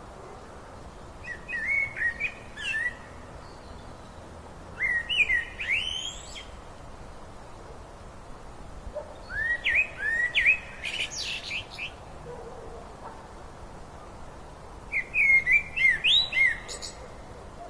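A songbird singing four short phrases of quick rising notes, a few seconds apart, over the steady rush of a river.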